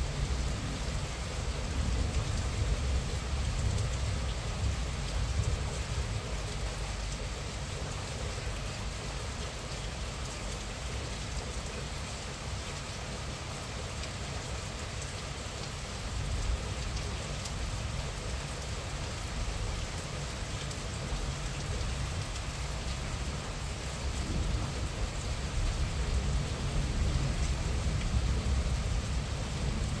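Moderate rain falling steadily, with fine pattering of close drops over a low rumble. It grows a little louder over the last few seconds.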